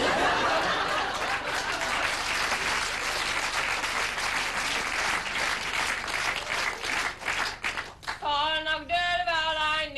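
Theatre audience applauding, a dense clatter of many hands that dies away about eight seconds in. Then a woman resumes singing unaccompanied, holding a long note.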